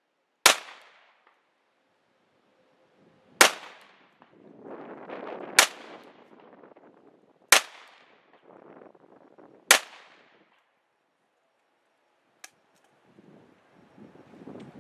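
Five 9mm pistol shots from a Glock 43, fired one at a time about two seconds apart, each sharp report followed by a brief echo. A faint click comes near the end.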